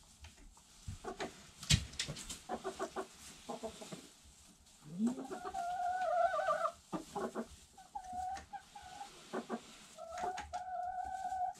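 Hens clucking in short notes, then giving three long drawn-out calls held on one pitch, about five, eight and ten seconds in. A single sharp knock, the loudest sound, comes just under two seconds in.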